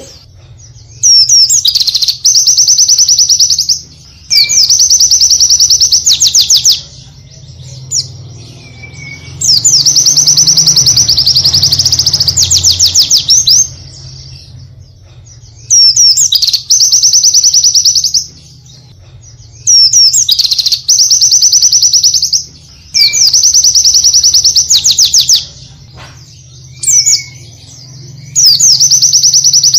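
White-eye (pleci) singing loud, high, fast-rolling song phrases of one to four seconds, about nine in a row with short gaps, each ending in a quick run of repeated notes. A steady low hum lies underneath.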